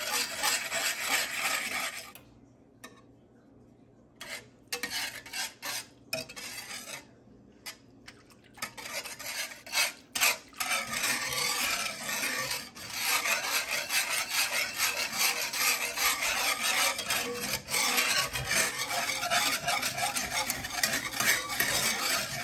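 Wire whisk scraping quickly around a cast-iron skillet, stirring thin chocolate gravy as it heats. The whisking stops about two seconds in, returns as a few scattered strokes, and runs on steadily again from about ten seconds in.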